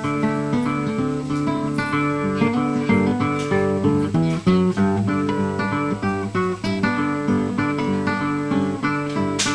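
Background music: a plucked acoustic guitar playing a run of quick notes.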